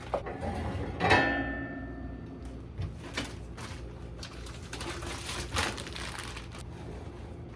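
Food containers and packaging being handled and taken out of a fridge. A sharp clink that rings on briefly comes about a second in, then repeated rustling and clattering of packaging.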